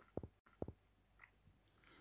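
Near silence: room tone, with two faint brief taps in the first second.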